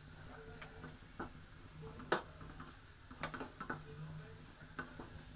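A spoon stirring cooked rice in a non-stick frying pan, with scattered scrapes and clicks of the spoon against the pan; the loudest knock comes about two seconds in.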